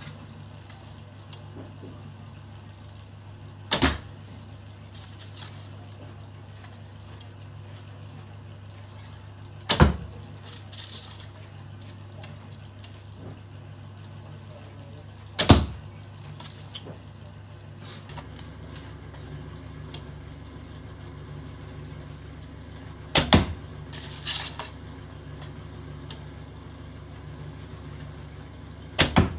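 A Dacian-style recurve bow shot five times, about every six seconds, each release a sharp crack of the string; the shot near the end of the third quarter comes as a quick double crack. A low steady hum runs underneath.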